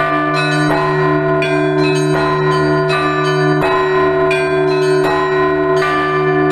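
Russian Orthodox church bells rung together in a pealing pattern. A deep bell hums steadily underneath while smaller bells are struck in quick succession, about two to three strikes a second.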